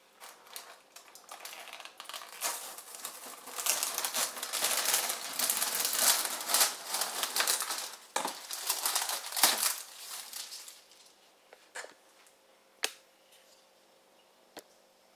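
Printed plastic film lid being peeled and pulled off a plastic strawberry punnet: dense crinkling and crackling of thin plastic for about ten seconds, loudest in the second half, then a few separate light clicks.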